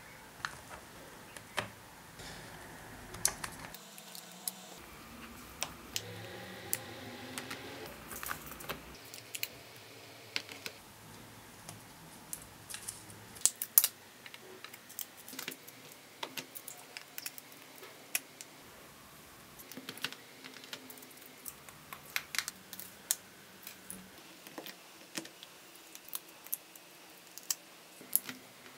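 Small plastic Miya Himi gouache jelly cups clicking and tapping as they are handled and set into a plastic palette tray, with rustling as their film lids are peeled back. The sound is a steady run of irregular sharp clicks, with a few louder knocks.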